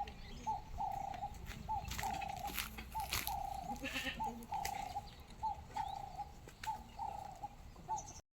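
An animal call repeating about once a second: a short hooked note followed by a longer, rougher note at the same pitch, about eight times over.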